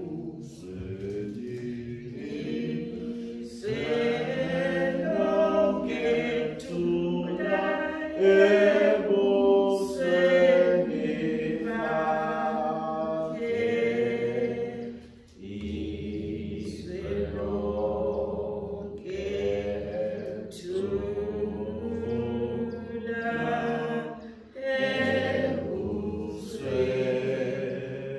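Church congregation singing an unaccompanied hymn, many voices together in sung phrases, with brief breaks between phrases about halfway through and again near the end.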